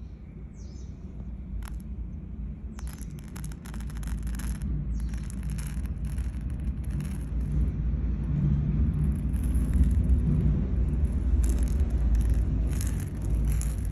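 Sella basmati rice grains trickling and sliding off a hand, heard as clusters of dry crackly ticks. Under them runs a steady low rumble that grows louder.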